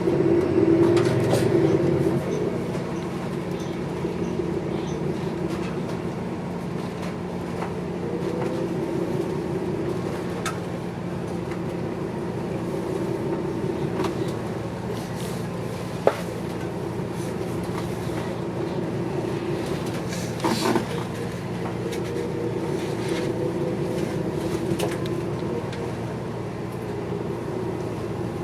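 Inside a moving city bus: the steady running noise of the bus with body rattles. There are a few sharp clicks and knocks, one about halfway through and a short cluster a few seconds later.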